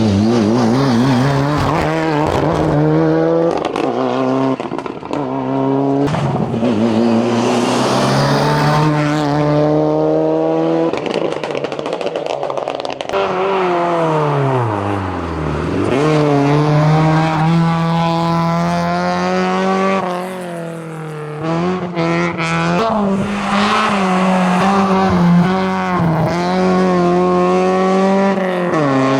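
Racing cars driven flat out up a hillclimb, engines revving and climbing in pitch through repeated gear changes. First comes a Mitsubishi Lancer Evo VIII with its turbocharged four-cylinder, then, from about twelve seconds in, an Opel Tigra, whose engine note falls away steeply and then climbs hard again.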